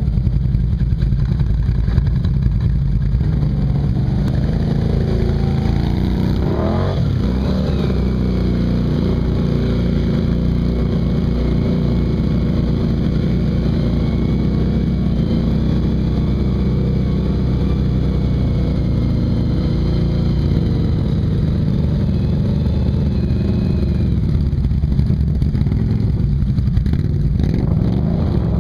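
ATV engine running steadily close by as the quad wades through deep water, revving up briefly about seven seconds in.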